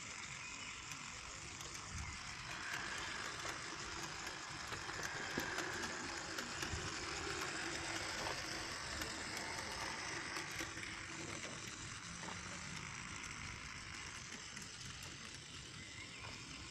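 Battery-powered H0-scale model locomotive running along metal Märklin track: a small electric motor and gear drive whirring, with the wheels clicking over the rails. It swells in the middle as the train passes close, then fades.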